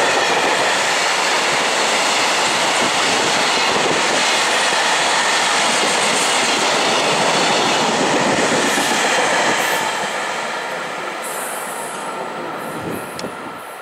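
Freight train of container wagons passing close by, a loud steady rumble and rattle of wheels and wagons. It fades from about ten seconds in as the last wagons go by and the train draws away, leaving a few faint clicks near the end.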